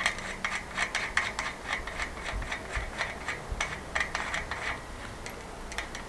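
Light metallic clicks, about three or four a second, from work at the front wheel hub of a folding electric bike as the wheel is being fitted.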